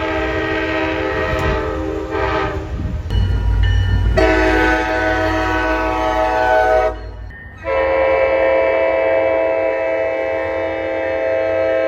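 Locomotive air horn sounding three long blasts: the first ends about three seconds in, the second runs from about four to seven seconds, and the third holds steady to the end. A deep rumble runs under the middle blast.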